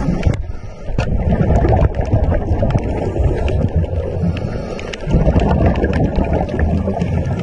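Underwater noise picked up through a camera housing: a loud, muffled low rumble with scattered small clicks and knocks, dipping briefly twice.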